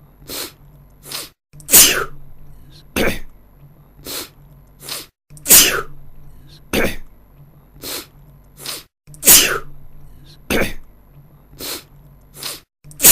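A man sneezing over and over. A loud sneeze comes about every four seconds, with shorter, quieter sneezes in between.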